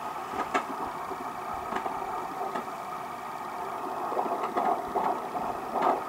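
BabyBeat fetal Doppler's speaker giving out a steady static hiss, with a few scratchy clicks, as its 3 MHz probe is moved over the belly to search for the baby's heartbeat.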